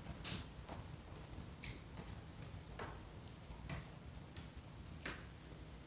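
Faint, irregular ticks and light taps, about six spread unevenly over a few seconds: footsteps of a person and dogs moving on a concrete floor.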